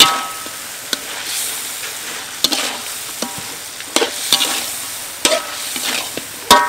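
Metal spatula stirring and scraping meat in a sizzling steel wok. Several sharp clanks ring out as the spatula strikes the wok, the loudest at the start and again near the end.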